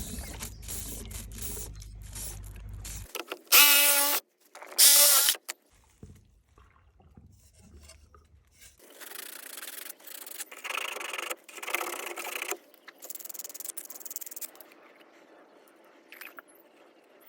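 Hand-tool scraping and rubbing on a pool plumbing elbow during its repair, in several stretches. Two short, loud buzzing bursts come about three and a half and five seconds in.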